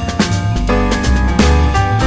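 Background music with a steady drum-kit beat: bass drum and snare under held keyboard chords.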